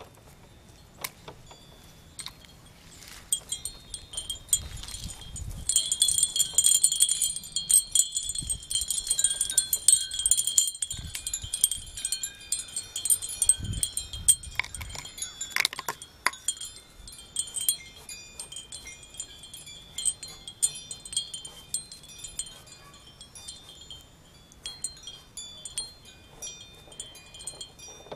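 Wind chimes ringing with repeated high, clear strikes, busiest from about six to eleven seconds in and sparser after.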